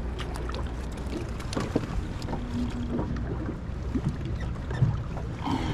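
Steady low rumble of wind and moving water, with scattered small clicks and knocks from handling, and a brief low hum about two and a half seconds in.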